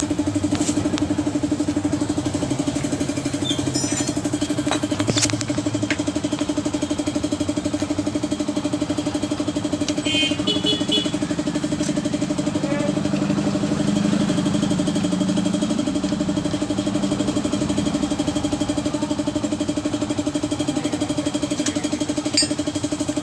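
An engine idling steadily with an even, unchanging hum, and a few light clicks now and then.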